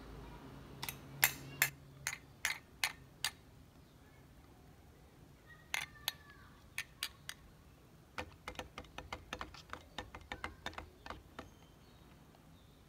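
Small cylindrical Happy Meal toy figures tapped and clacked against the tabletop and each other as they are moved by hand: a run of sharp clicks near the start, a few more around the middle, then a quicker patter of clicks in the second half.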